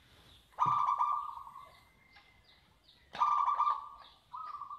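Caged zebra dove (perkutut) singing its cooing song: two loud calls about two and a half seconds apart, each opening abruptly and running into a long rolling coo, with a shorter third coo starting near the end.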